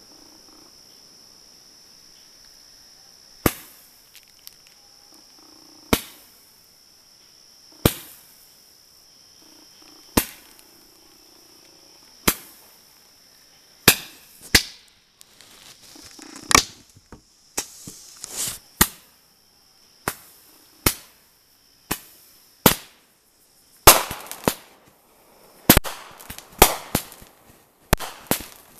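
Consumer fireworks firing roman-candle shots: sharp pops, at first about one every two seconds, then coming quicker and overlapping in the second half, with crackling near the end. A steady high insect trill runs behind.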